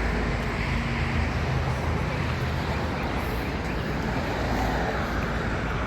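Steady, loud rushing roar of a waterfall, an even wash of falling water with a deep low rumble.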